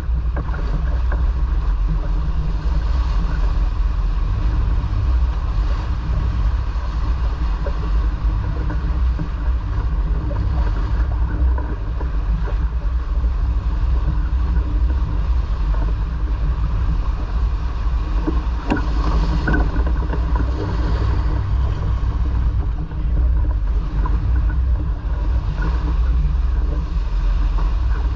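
Steady low rumble of a sailboat under way, with a faint steady hum above it.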